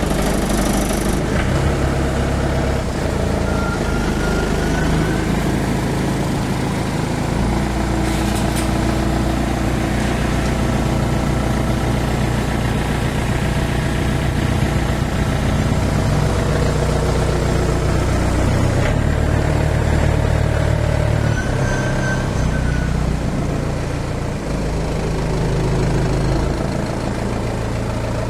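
YANMAR AW70V combine harvester's engine running steadily, its low hum shifting up and down in pitch every few seconds as the load changes.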